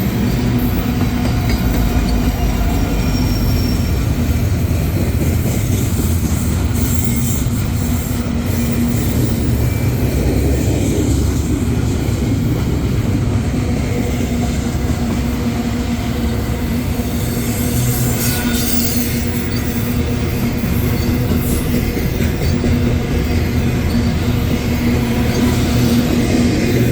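Freight train rolling past at close range: a steady, loud rumble of the cars' steel wheels on the rails.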